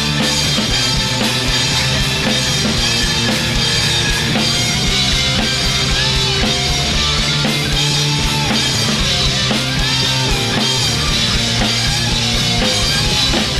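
Live rock band playing an instrumental passage of a song: drum kit, bass and guitars at a steady, loud level with no singing.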